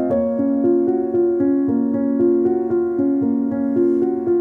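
Calm keyboard music: a steady, flowing pattern of piano-like notes at about five a second.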